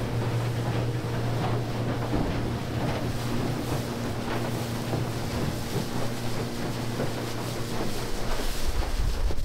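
Outboard motor pushing a Stabicraft 1850 Fisher boat under way, running at a steady pitch, with water rushing past the hull and wind buffeting the microphone.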